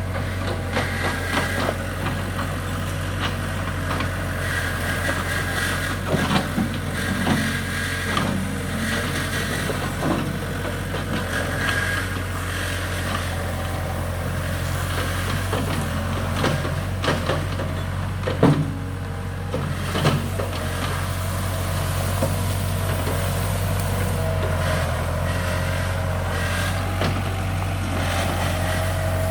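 Case 1845C skid steer's diesel engine running steadily as the machine works, with a whine through the middle. Scattered knocks and cracks come over it, the sharpest about eighteen seconds in, as the machine pushes trees and brush.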